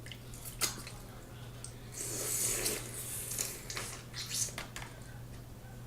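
Soft wet eating sounds of a seafood boil being handled and chewed: a few small clicks, with a brief rustle about two seconds in, over a steady low hum.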